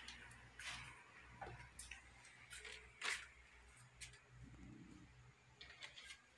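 Near silence: room tone with a low hum and a few scattered faint clicks and light knocks, the strongest about three seconds in.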